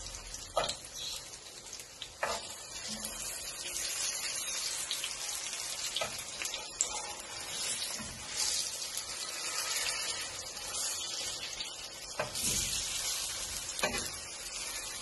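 Batter-coated plantains sizzling in hot oil in a frying pan, with a few short knocks of a spatula against the pan as they are turned.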